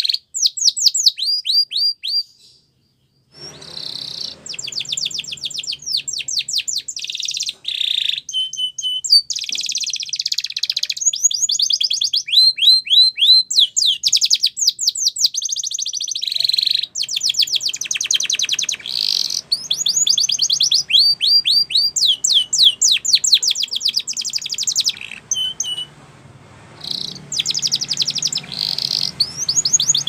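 Spanish Timbrado canary singing: long phrases of fast trills, each a quick run of the same high, falling note repeated many times, switching from one trill to the next. The song breaks off briefly about three seconds in and drops away again shortly before the end.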